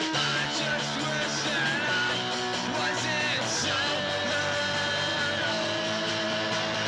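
A three-piece punk rock band playing, with electric guitar, bass and drums, on a lo-fi home-recorded demo cassette.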